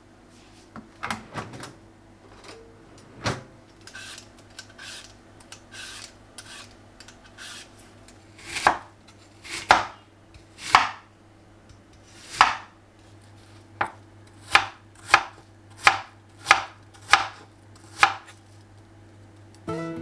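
Kitchen knife cutting fruit on a wooden cutting board. Light knocks and handling come first, then from about halfway a run of sharp chops against the board, about one and a half a second towards the end.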